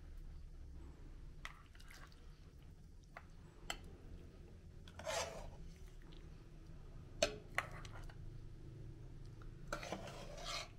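A metal ladle scraping and clinking against a metal pot as stew is scooped out, with a few sharp clinks, the loudest about seven seconds in. Twice, about five seconds in and near the end, a short splash as the ladleful of broth is poured into a bowl.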